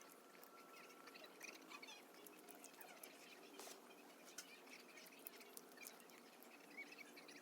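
Faint, irregular small clicks with short high squeaks or chirps scattered throughout, like a small animal eating.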